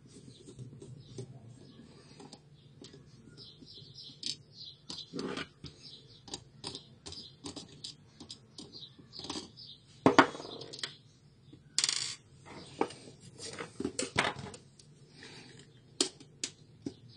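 Irregular small clicks and rattles of hard plastic on an HP 17A toner cartridge being taken apart, with a screwdriver working at the gear-side end cap. A few louder knocks come about ten and twelve seconds in.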